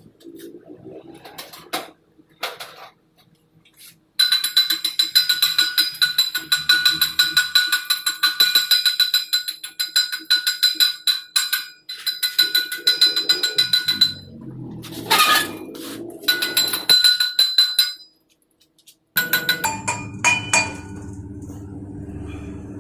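Shielded metal arc welding arc crackling and sputtering as an E6013 electrode lays the hot pass on a carbon steel pipe. It starts about four seconds in and runs for about ten seconds, breaks off, then comes back in shorter runs with pauses.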